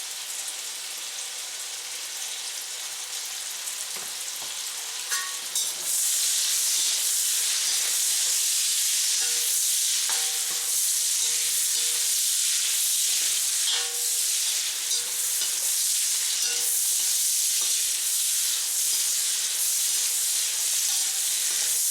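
Apple slices and onion rings sizzling in hot pork fat in a frying pan, the sizzle growing clearly louder about six seconds in, with a few light clicks scattered through.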